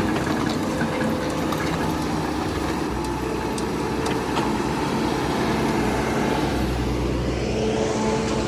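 Hitachi excavator's diesel engine running under working load, with a few sharp knocks in the first half. About seven seconds in the engine note deepens and grows.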